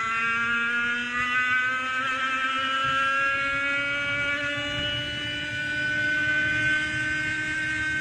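100cc two-stroke racing kart engine at high revs, accelerating, its pitch climbing slowly and steadily.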